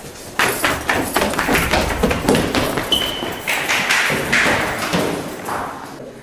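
Quick footsteps on a hard floor and stairs, about three to four steps a second, with a brief high squeak about three seconds in.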